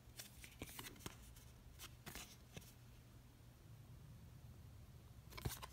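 Faint handling of a cardboard baseball card in the fingers: scattered light ticks and soft rustles as it is held and turned over, with a few more clicks near the end, over near silence.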